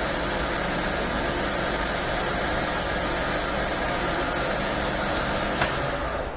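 MAHO MH300 universal milling machine running, a steady mechanical whirr over a low hum. A short click comes about five and a half seconds in, and the noise eases off slightly just before the end.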